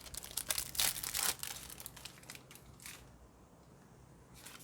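Plastic wrapper on a sealed pack of trading cards being torn open, crinkling for the first two to three seconds before going quiet, with one last brief rustle near the end.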